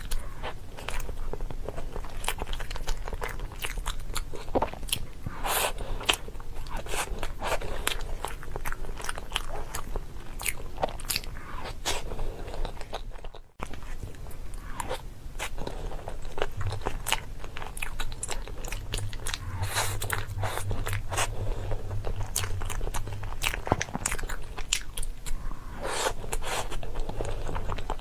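Close-miked chewing and biting of crisp food: a dense run of sharp crunches. There is a brief drop-out about halfway through.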